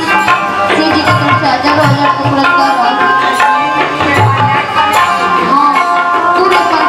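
Live band music with tabla and drum strokes under melodic instruments with pitch bends.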